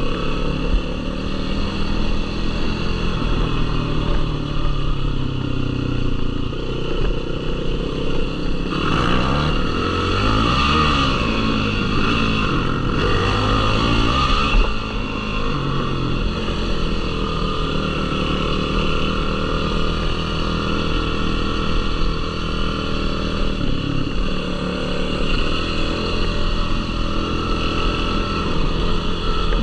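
Yamaha YFZ450R sport quad's single-cylinder four-stroke engine running on a dirt trail, its revs rising and falling repeatedly about a third of the way in, then holding steadier.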